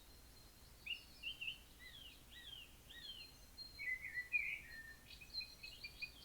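Songbirds chirping and whistling softly: a string of short, slurred notes that rise and fall, beginning about a second in.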